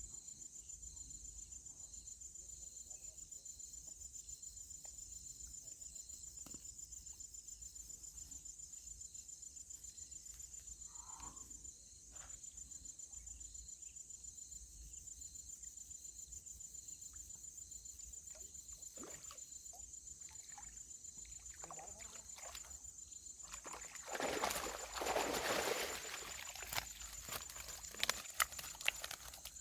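Insects chirring steadily in a high, pulsing drone. About 24 seconds in, a loud noisy rush lasts a couple of seconds, followed by a scattering of sharp clicks and knocks.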